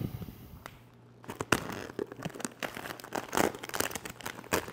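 Black vinyl car wrap film crinkling and crackling in irregular bursts as it is handled and pulled over the boat frame, starting about a second in.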